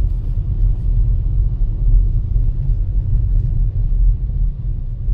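Steady low rumble of a car driving, heard from inside the cabin: engine and road noise with no distinct knocks or changes.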